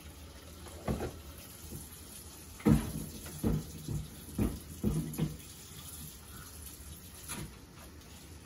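Water running in a kitchen sink while a wooden cutting board is washed. Several knocks as the board bumps against the sink, most of them in a run of about two and a half seconds near the middle.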